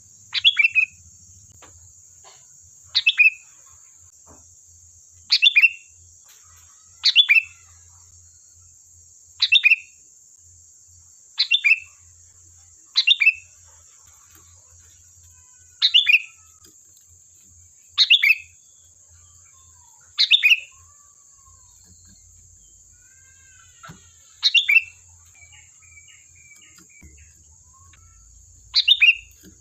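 Sooty-headed bulbul (kutilang) calling repeatedly: a short, loud, quick-falling chirp about every two seconds, with a few fainter twitters between calls near the end, over a steady high-pitched hiss.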